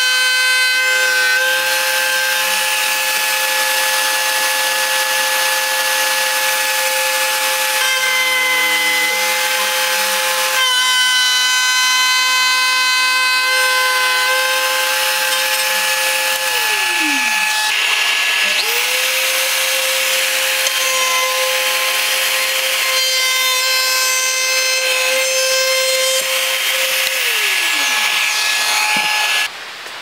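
DeWalt plunge router running at full speed, routing a slot in wood along a jig: a steady high motor whine over cutting noise. It spins down a little over halfway through, starts up again a second or so later, and spins down once more near the end.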